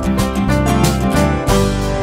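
Background music led by a strummed acoustic guitar, with a steady beat.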